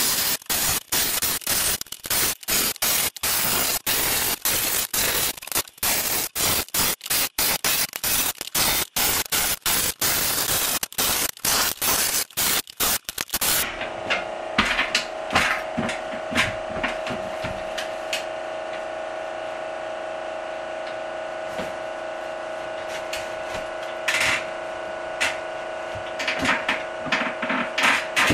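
Cordless jigsaw cutting plywood, its blade noise starting and stopping with abrupt gaps for about the first half, then stopping. After that a steady hum with occasional knocks and taps as plywood panels are handled.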